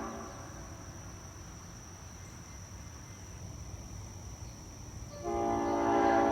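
Nathan Airchime P5 air horn with the rare old-cast P0 bell (bells P0, 1, 2, 3, 5): a blast cuts off at the start, then after about five seconds of low rumble the horn sounds again, a steady multi-note chord that holds to the end.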